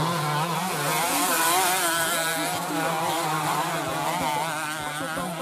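Several two-stroke bebek (underbone) race motorcycles being ridden hard on a dirt track, their engines revving and their pitch rising and falling as the riders work the throttle.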